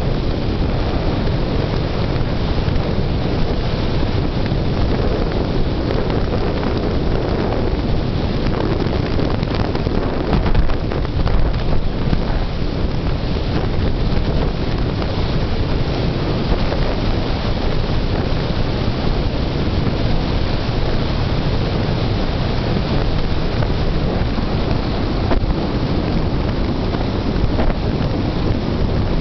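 Steady, heavy wind rush on a camera microphone held out the window of a car driving at about forty-five miles per hour, with a few stronger gusts about a third of the way in.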